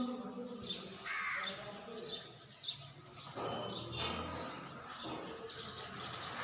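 Birds calling: a run of short, high falling chirps, with a couple of harsher, lower calls about a second in and again midway.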